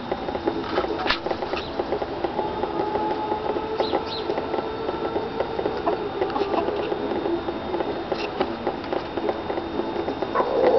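Irregular light taps and clicks from chickens pecking and stepping around a silver candy dish on asphalt, over a steady background hum.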